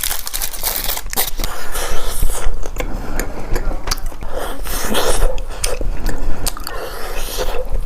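A person biting and chewing sauce-coated mushrooms, with many quick, irregular clicks throughout.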